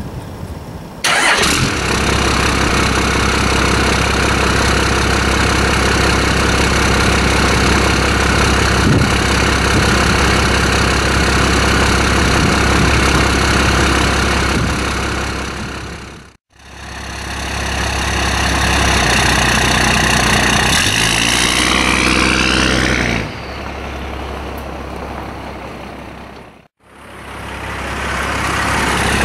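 1993 Dodge Power Ram 250's 5.9-litre Cummins turbo-diesel inline-six starting cold: it fires up about a second in and runs at a steady idle. About 20 seconds in it revs up with a rising pitch, then settles back to a quieter idle. The sound cuts out briefly twice.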